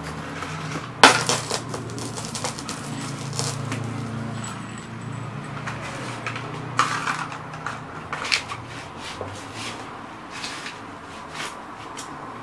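Vintage glass radio vacuum tubes crunching and shattering under cowboy boot heels on a concrete floor, with glass shards clinking. The loudest crunch comes about a second in, more follow around seven and eight seconds, and small tinkles and ticks are scattered between.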